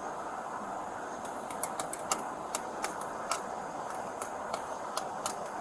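A steady background hum with a string of sharp, irregular clicks or taps starting about one and a half seconds in.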